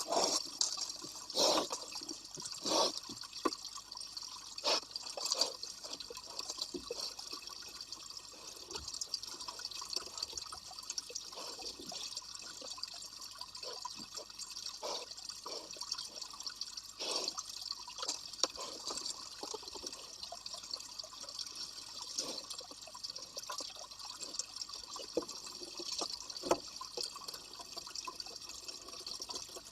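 Wild boar chewing a coconut: irregular wet crunches and smacks, some louder and closer together in the first few seconds, over a steady high hiss.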